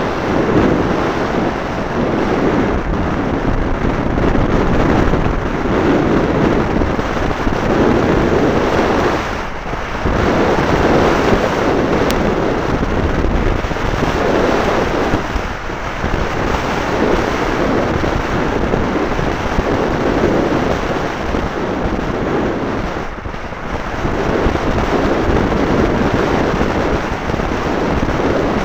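Wind rushing loudly over the tiny microphone of a keychain spy camera on a bicycle moving at race speed, swelling and easing every couple of seconds, with a few short lulls.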